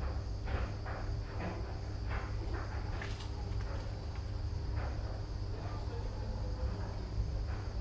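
Footsteps, roughly two a second, over a steady high insect drone and a low rumble.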